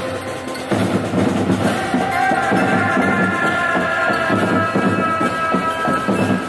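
Music with a steady drum beat; held notes come in about two seconds in.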